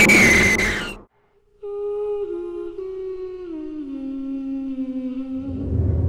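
A loud, shrill scream over the horror score cuts off sharply about a second in. After a short silence, a lone voice hums a slow tune that steps downward note by note. A low rumble begins near the end.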